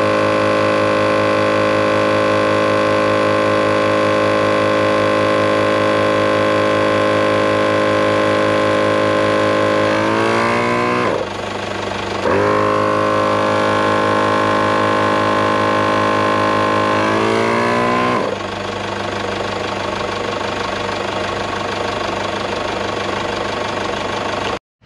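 Thumper Max Dual MkII 12-volt twin air compressor running steadily while inflating a 4WD tyre, a loud motor-and-piston drone. Twice, about ten and seventeen seconds in, its pitch sinks away and then picks up again. Over the last few seconds a lower, rougher running sound follows, then it cuts off abruptly.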